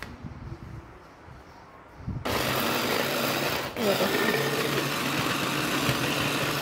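Electric hand blender motor on its chopper attachment, switched on about two seconds in and running steadily as it chops bread into crumbs, with a brief dip in the middle. Before it starts there are a few low knocks as the motor unit is fitted onto the bowl.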